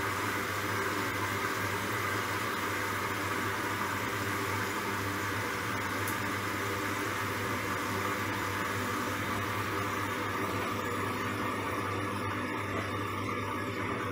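Candy Grand'O Vita front-loading washing machine in its wash: the drum turns with water sloshing over the load, over a steady motor hum. A high hiss in the noise eases about ten seconds in.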